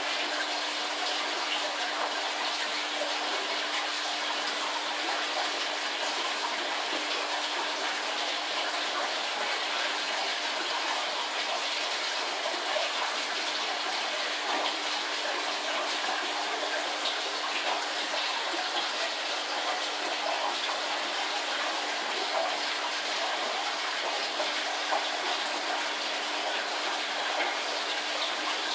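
Aquarium water bubbling and splashing steadily from a heavy stream of bubbles in the tank, with a faint steady hum underneath.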